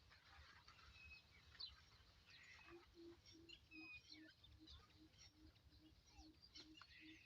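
Faint outdoor birdsong: scattered high chirps and tweets, with a run of about a dozen low, evenly spaced hooting notes starting about three seconds in.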